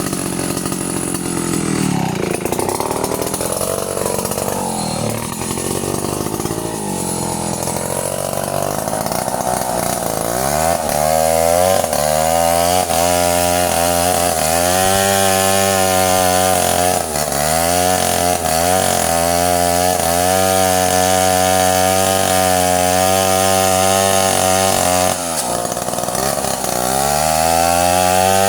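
Stihl chainsaw engine running, its revs rising and falling unsteadily for the first ten seconds or so, then held high and steady with several brief sags in pitch as the chain works through wood.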